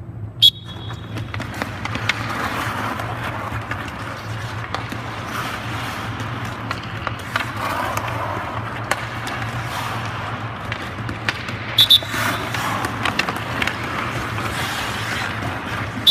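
Ice hockey skates carving and scraping on the ice, with sticks and puck clacking, over a steady low arena hum. A sharp whistle blows briefly about half a second in, twice in quick succession near the twelve-second mark, and once at the end.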